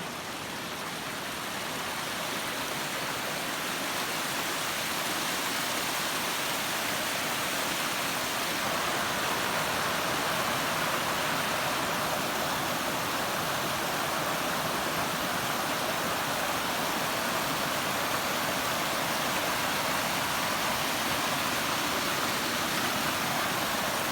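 Steady rush of water from a mountain stream or waterfall, growing a little louder over the first several seconds and then holding steady.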